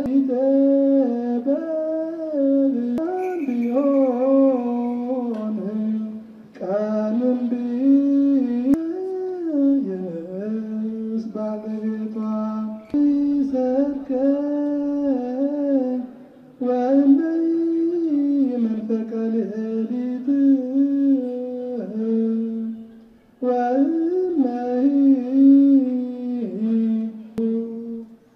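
A single voice singing unaccompanied, slow held notes with wavering ornaments, in phrases separated by short pauses.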